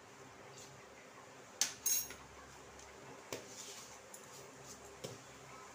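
A spoon clinking against a metal kadhai as cumin seeds are tipped into hot mustard oil. There are two sharp clinks about one and a half to two seconds in, then single taps near the middle and near the end. Under the clinks is a faint crackle of the seeds in the oil.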